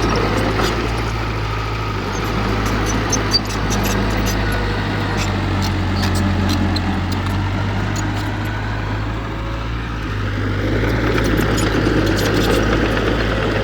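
Diesel engine of heavy earthmoving equipment running steadily at a constant low pitch, with scattered light clicks and clinks over it.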